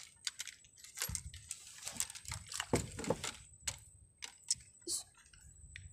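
Irregular rustling and clicking of fishing gear being packed up, with a fabric bag being handled, and a few soft knocks.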